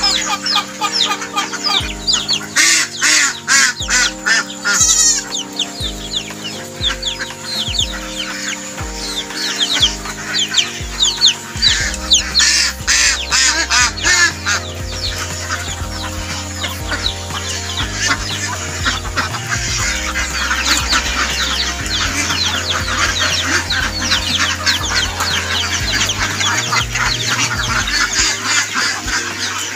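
A large flock of domestic ducks calling and chattering together, many short calls overlapping, over background music.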